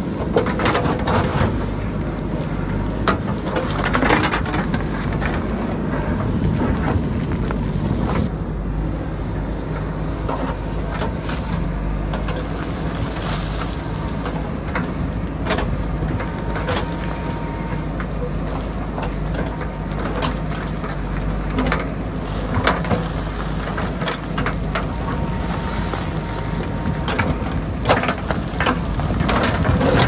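JCB backhoe loader's diesel engine running steadily as it digs a hillside, with scattered knocks and clatter.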